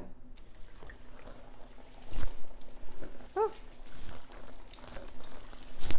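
Hot oil sizzling and bubbling as apple pies deep-fry in a skillet, with a dull knock about two seconds in and a louder one near the end. A brief pitched squeak comes about halfway through.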